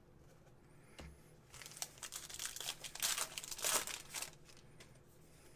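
Foil trading-card pack wrapper crinkling as it is torn open and handled, a burst of rustling that starts about a second and a half in and dies away after about four seconds.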